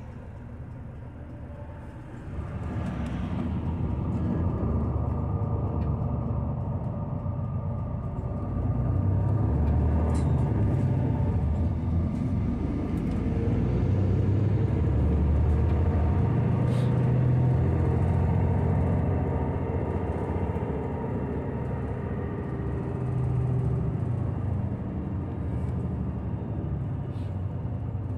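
Tokyu city bus heard from inside the passenger cabin: its engine and road noise as a steady low rumble that grows louder about two seconds in and swells and eases as it drives, with a few light clicks and rattles.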